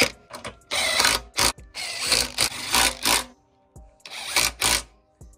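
Cordless power driver spinning socketed bolts into a small engine's side cover in several short bursts with brief pauses between them, tightening the cover back onto the crankcase after a cam swap.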